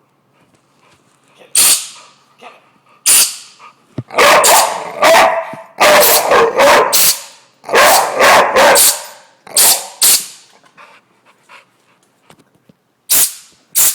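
Short, loud hissing blasts from an air gun, a few single ones and then a rapid cluster in the middle, with a young pit bull barking and snapping at the air.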